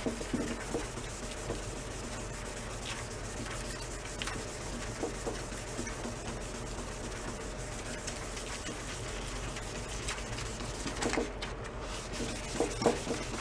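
Wet sandpaper rubbed back and forth by hand over the painted fuel tank of a Jawa 350 motorcycle, a steady scrubbing, wet-sanding the black overpaint down toward the original red paint.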